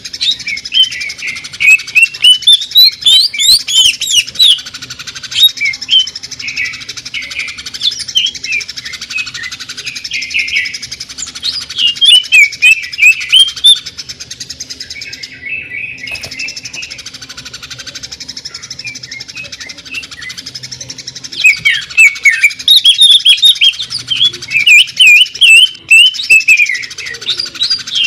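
Greater green leafbird (cucak ijo) singing in loud clusters of fast, sharp, rapid-fire notes, about three bouts in all, with softer continuous chattering between them.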